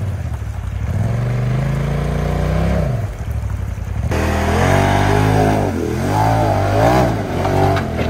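Can-Am side-by-side's engine revving under load on a steep rock climb: the throttle eases off briefly near the start and again about three seconds in, then comes a run of quick revs rising and falling as the driver works the throttle up the ledge.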